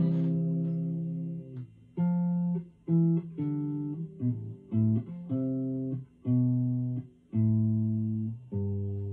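Clean electric guitar played alone: a slow run of picked notes and chords, each ringing about a second and fading before the next, with short gaps between them.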